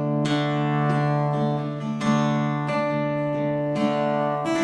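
Acoustic guitar playing a strummed chord intro, with a new strum about once a second and the chords ringing between.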